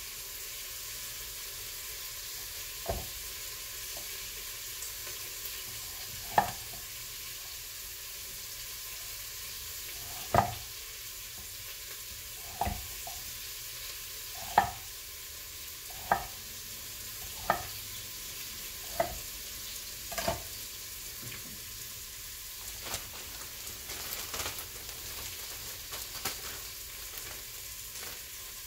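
Chef's knife chopping through carrots onto a wooden cutting board: about nine sharp knocks, a second or two apart, over a steady hiss of steam venting from an Instant Pot pressure cooker. Near the end, softer handling sounds from a plastic zip-top bag.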